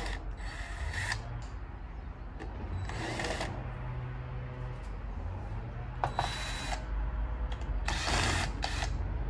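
Cordless drill/driver running in four short bursts, unscrewing the quarter-inch bolts that hold an AC condenser fan motor to its fan guard.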